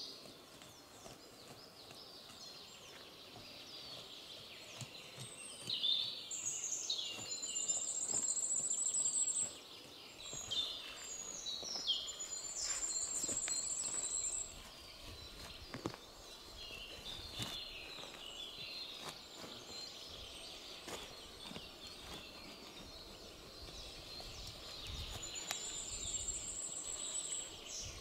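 Woodland birds singing, with three high, fast trills of about two seconds each, the loudest sounds. Beneath them come faint scrapes and rustles of gloved hands pulling moss and soil from the forest floor.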